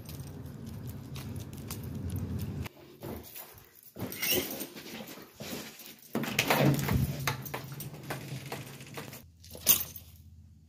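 A pit bull making sounds and moving about on a leash, with a sharp click shortly before the end.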